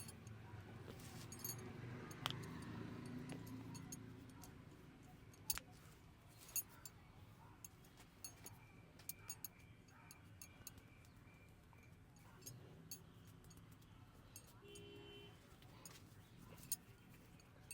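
A barber's hand massage in a quiet room: faint low murmur in the first few seconds, then scattered small clicks and taps, with three sharper snaps, two of them a second apart about five seconds in and one near the end.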